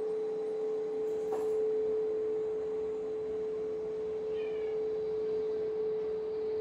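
Steady meditation background drone: one pure, unwavering tone with faint higher overtones.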